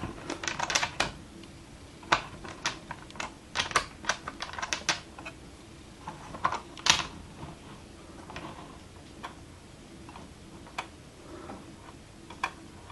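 Light plastic clicking and clattering of an HO-scale model boxcar handled and rolled on track, its Kadee coupler tapping against a coupler height gauge as its alignment is checked. Quick clicks come thickly for the first few seconds, then only single clicks here and there.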